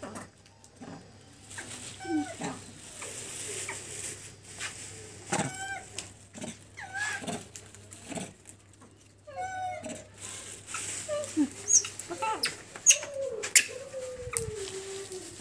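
Dog whining and giving short, pitched yelps, with one long, slowly falling whine near the end, and a few sharp taps.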